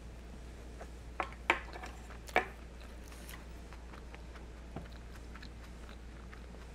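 Eating sounds: chewing and a few sharp clicks of mouth and utensils, clustered between about one and two and a half seconds in, over a steady low hum.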